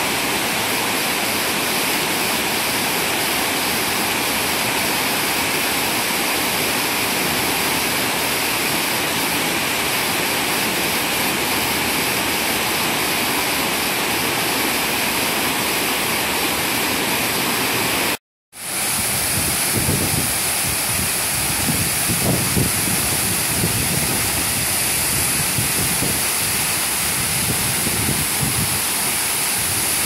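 Waterfall and rapids rushing over rocks, a steady, even roar of water. After a brief dropout about 18 seconds in, a waterfall pouring into a pool rushes on, with irregular gusts of wind buffeting the microphone.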